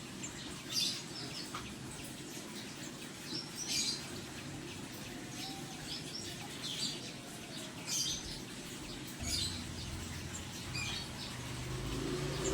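Songbirds chirping in short, high calls about once a second, over a steady low background noise. A low rumble builds near the end.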